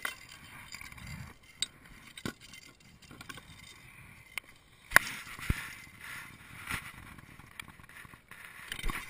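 Handling noise on a plastic sit-on-top kayak: scattered knocks and clicks as gear and the paddle are moved, with rustling of a sleeve and a cloth close to the microphone. The sharpest knock comes about five seconds in.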